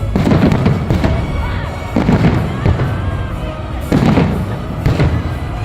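Festive fireworks salute shells bursting overhead: a string of about five heavy booms at irregular intervals, each trailing off in an echo.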